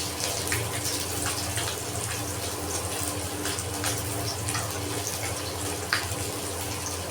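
Oil sizzling in a pan as a Bengali fish curry cooks: a steady frying hiss with irregular small crackles and pops, over a low steady hum.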